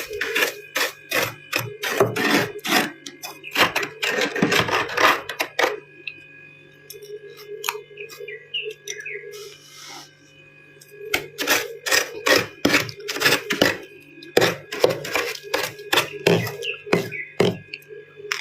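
Ice and freezer frost crunching close to the microphone as it is chewed: rapid, irregular sharp crunches, a quieter pause of a few seconds in the middle, then another run of crunching.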